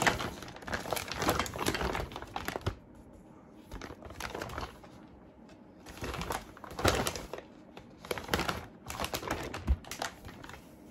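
Clear plastic vacuum storage bags crinkling as they are handled and laid out flat. The crinkling comes on and off, with quieter stretches about three and five seconds in.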